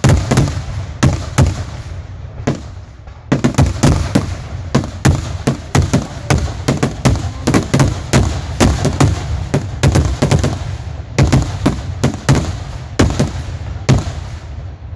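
Aerial fireworks shells bursting in a rapid barrage of sharp bangs, several a second, with a short lull about two to three seconds in.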